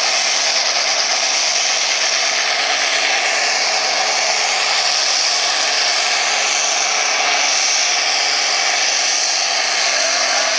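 A modified farm tractor's diesel engine running flat out under full load as it drags a weight-transfer pulling sled. It makes a loud, steady, high-revving sound throughout.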